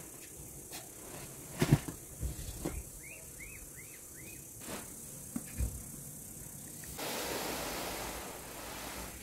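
A large wool carpet being unrolled and spread over a tiled floor: soft thumps and knocks as it is dropped and pushed along, the loudest about two seconds in, then a steady swishing rush for the last couple of seconds as it is lifted and shaken out.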